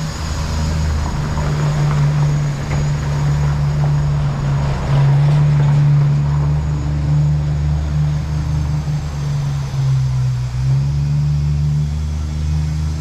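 A motor vehicle's engine running close by with a steady low drone, its pitch rising a little about five seconds in and dipping briefly near the end.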